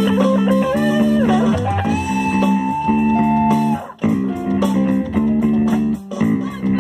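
Rock band run-through with electric guitars and bass: a chugging rhythm under a lead guitar that climbs and then holds one long note for about two seconds. There are brief breaks in the playing about four and six seconds in.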